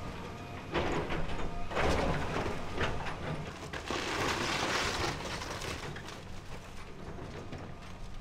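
A bulldozer demolishing a building: wood and debris crunch and crash in several bursts over the first five seconds, then the noise settles to a lower steady rumble.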